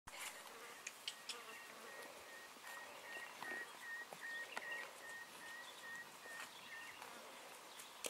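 Faint outdoor ambience with an insect's thin, high buzz repeating in short pulses for several seconds, over scattered soft clicks.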